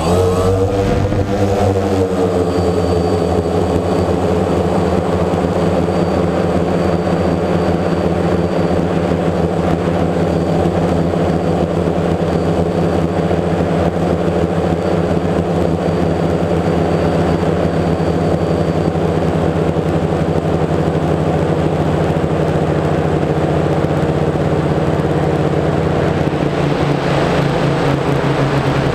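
DJI Phantom quadcopter's electric motors and propellers running, heard close up from the camera mounted on the drone: a steady hum of several pitches. The pitches waver in the first couple of seconds and shift again near the end.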